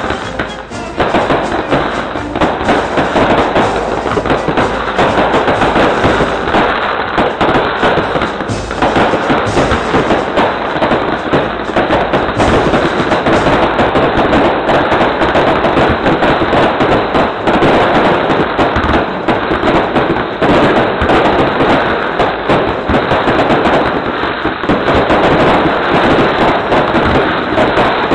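Aerial fireworks bursting in quick succession: a dense, unbroken volley of bangs and crackles, loud from about a second in.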